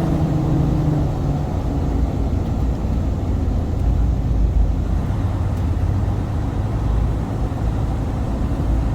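Diesel engine of a 2017 Freightliner semi-truck running as the truck is driven slowly, heard from inside the cab as a steady low rumble, with a brief low hum in the first second and a half.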